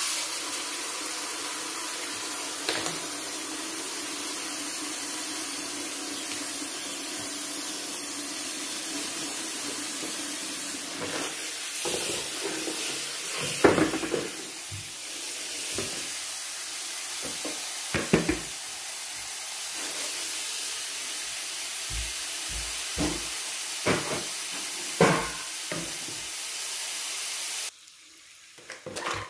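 Kitchen tap running steadily into a stone sink while spinach is rinsed, with splashes and knocks from handling the wet leaves now and then; the running water cuts off abruptly near the end.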